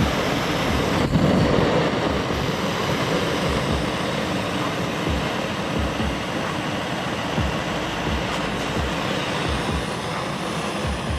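Steady, loud noise of a running vehicle, with irregular low thumps, cutting off suddenly at the end.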